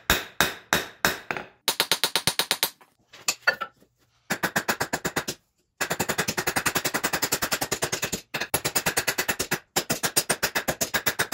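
A 2-pound hand hammer striking a hot 5160 coil-spring steel punch blank, planishing the taper round. A few spaced blows open, then quick runs of rapid strikes broken by short pauses.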